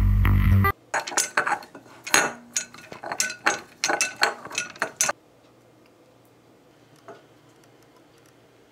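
A small glass dropper bottle knocking and clinking around inside a glass mixing bowl: a quick, irregular run of sharp knocks for about four seconds that stops abruptly.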